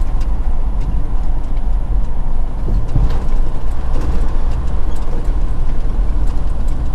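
Steady low drone inside the cab of a 2016 Freightliner Cascadia semi truck with a Detroit DD15 diesel engine, driving along with engine and road noise.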